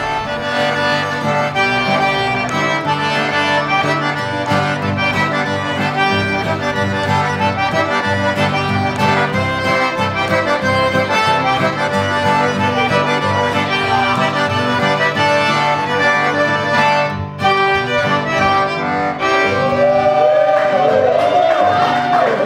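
Cajun band music led by a diatonic button accordion, with fiddle and acoustic guitar playing along.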